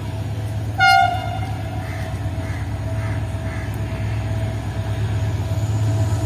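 A diesel locomotive hauling the Pakistan Express runs past with a steady low rumble and sounds one short horn blast about a second in.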